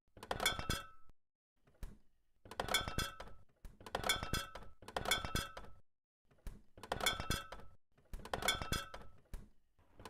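Fridge door yanked open again and again, glass containers in its door shelves clinking and ringing with each swing. The clatters come about once a second.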